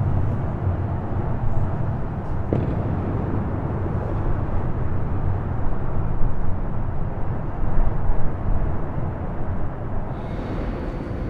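Outdoor city background noise: a steady low rumble, swelling louder a couple of times around the middle.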